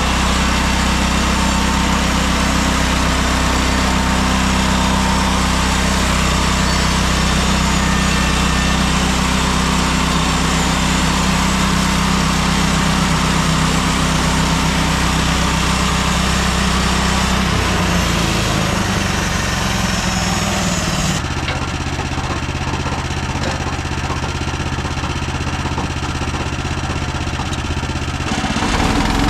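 Gasoline engine of a portable band sawmill running steadily, with a deep, even hum. Its sound changes about two-thirds of the way through and changes back near the end.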